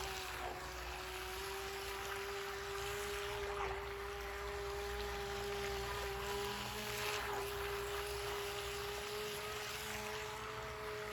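IOKUKI 2.4 GHz RC speedboat's electric motor running at a steady whine that shifts slightly in pitch now and then, over a hiss of water.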